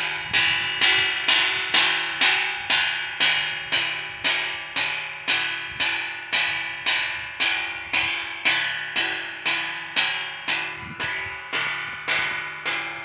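A steel plate struck over and over by a wind-turned pinwheel clapper, ringing after each strike at about two strikes a second. This is a homemade noise-maker for scaring wild animals away from crops.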